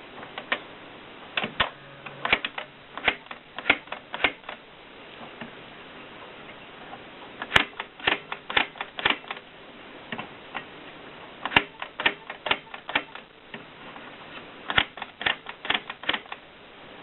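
AEG Mignon 3 index typewriter typing: sharp clacks in quick runs of several strokes, with pauses of a second or more between the runs.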